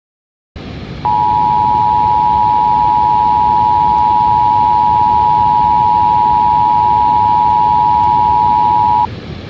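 Emergency Alert System attention signal: a loud, steady two-note tone that starts about a second in, holds for about eight seconds, and cuts off abruptly. It sits over a constant static noise that begins half a second in.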